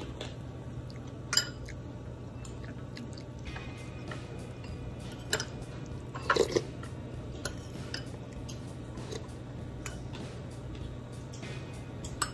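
Eating sounds: a metal spoon clinking against a ceramic bowl a few times, with a quick cluster of clinks a little past halfway, and chewing in between, over a steady low hum.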